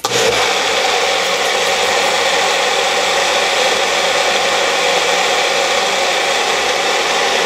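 Magic Bullet blender switched on and running steadily at full speed, blending field greens, bananas and dates into a green smoothie.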